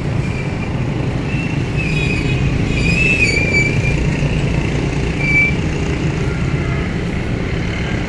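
Steady low rumble of street traffic, with a few brief high squeals about two to three and a half seconds in and once more a little after five seconds.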